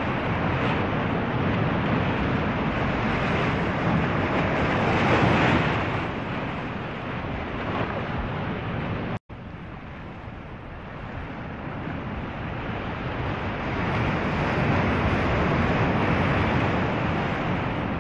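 Rushing sea waves with wind, swelling and easing. It drops out for an instant about nine seconds in, then builds again.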